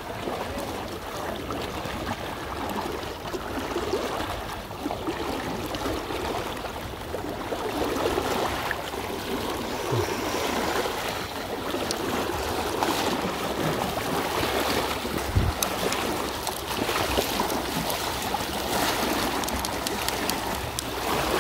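Una river water flowing and splashing around the angler, a steady rush with a couple of brief low thumps about ten and fifteen seconds in.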